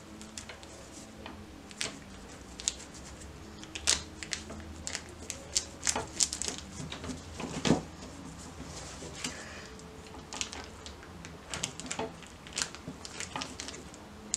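A stainless-steel spatula edge pressed and scraped through a plastic freezer bag of minced meat onto a plastic cutting board, scoring it into portions: irregular clicks, taps and plastic crinkling, the loudest tap about eight seconds in.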